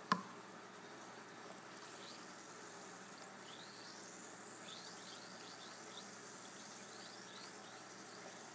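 An Alka-Seltzer tablet drops into a plastic cup of water with a brief plop right at the start, then fizzes faintly as it dissolves. Short chirp-like pings come and go through the fizzing.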